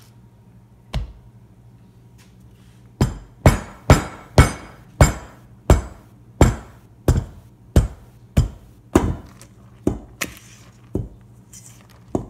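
Repeated hard knocks like hammer blows: a single strike, then after a short pause about fifteen more in a steady rhythm, roughly two a second and slowing a little near the end, each with a short ringing tail.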